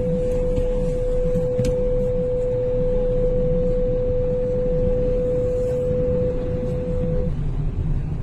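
Floodwater rushing down a street as a steady low rumble, overlaid by a single steady pure tone that holds for about seven seconds and then stops shortly before the end.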